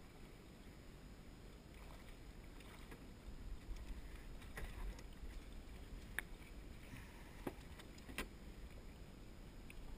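Low, steady wind and water sounds around a small aluminum rowboat, with a few sharp knocks on the hull about six, seven and a half and eight seconds in as a landing net is brought aboard.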